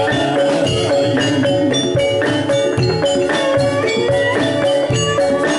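Javanese gamelan playing live: kendang hand-drum strokes over ringing bronze metallophones and gongs, in a steady rhythm.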